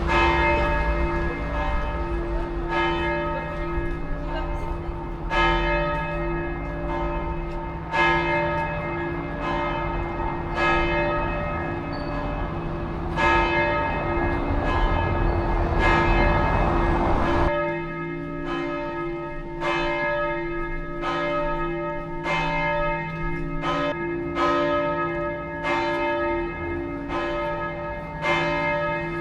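Church bells ringing, several bells struck over and over with their tones ringing on. The strikes come faster about two-thirds of the way through, when a low rumble underneath stops.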